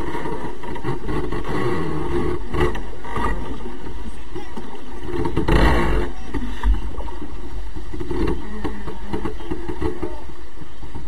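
Wind buffeting the microphone on a sailing yacht's deck in a strong breeze, mixed with the rush of waves along the hull. Louder gusts come about two and a half and five and a half seconds in.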